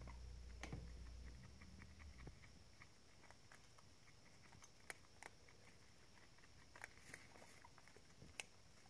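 Faint clicking and crunching of guinea pigs chewing pellets, with a few sharper clicks. A low hum stops about two seconds in.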